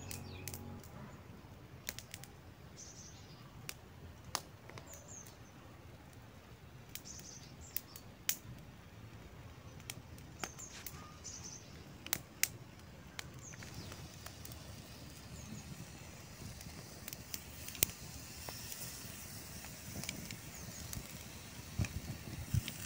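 Quiet outdoor ambience with birds chirping now and then, short high chirps every few seconds. Scattered sharp ticks and clicks run throughout, and a few low knocks come near the end.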